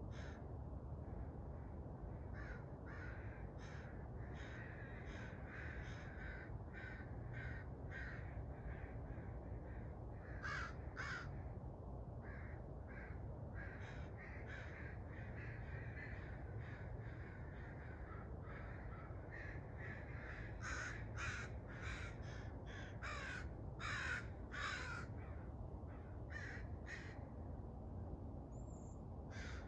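Crows cawing, short calls repeated in loose series that grow busier in the second half, over a steady low rumble of background ambience.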